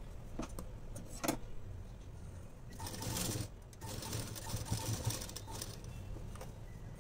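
Domestic sewing machine stitching through cloth in two short runs: one about three seconds in, then after a brief stop another lasting about a second and a half. A couple of sharp clicks come before the first run.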